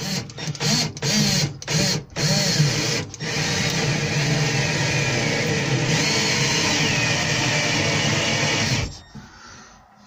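Cordless drill-driver driving a screw through a wooden batten into a plywood wardrobe back: a few short trigger bursts, then a steady run of about six seconds that stops abruptly near the end.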